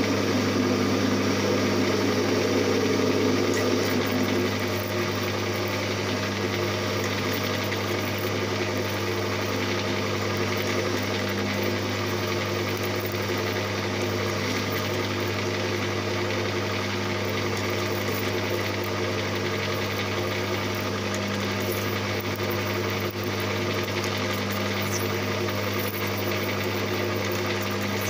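Emco Maximat metal lathe running steadily at about 240 RPM with a constant hum, while a parting tool cuts into a spinning metal part. The sound is louder for the first four seconds or so, then settles to an even, slightly quieter running.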